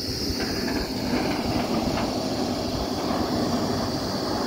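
Truck-mounted borewell drilling rig running steadily: a continuous mechanical drone with a constant high hiss over it.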